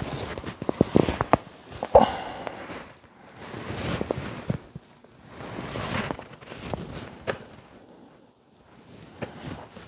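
Two-handled fleshing knife scraping flesh and fat off an elk hide on a fleshing beam. Quick crackly scraping strokes come in the first two seconds, then slower separate strokes, with a short lull near the end.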